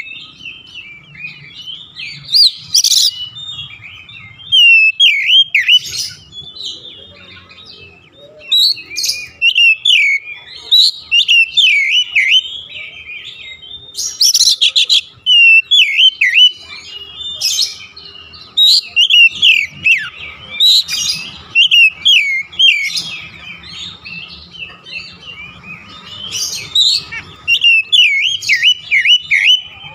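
Oriental magpie-robin in full song: loud, rapid bouts of varied whistled phrases with sliding notes and sharp, high chattering strokes, coming in bursts every second or two.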